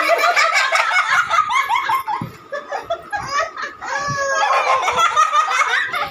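Rapid, high-pitched cackling whose pitch keeps jumping and bending.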